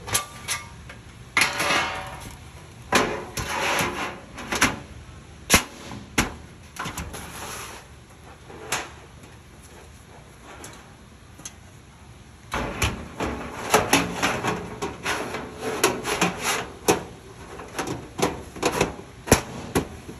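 Sheet-metal filing cabinet panels being handled and fitted together: a run of sharp knocks and clicks with scraping rubs between them, in two busy spells with a quieter stretch in the middle.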